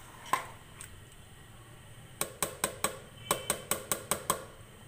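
Metal ladle clinking against the side of a cooking pot while stirring a thick curry. There are a couple of single clinks, then a quick run of about ten clinks in two seconds, about five a second.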